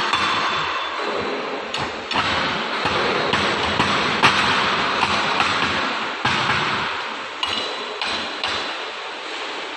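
Irregular metallic knocks and clanks from work on a furnace chain grate, with the strongest strikes about 2, 4, 6, 7.5 and 8.5 seconds in. A steady noisy background runs underneath.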